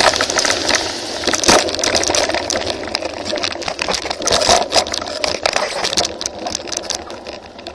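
Mountain bike rolling over a rough dirt and gravel track, heard from an on-board camera: a steady rush of tyre and wind noise with many sharp clicks and rattles from the bike jolting over the ground, growing quieter towards the end.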